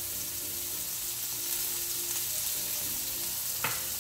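Hot oil sizzling steadily as sliced green plantains fry in a deep pan, with chopped onions frying in a second pan. A brief knock sounds near the end.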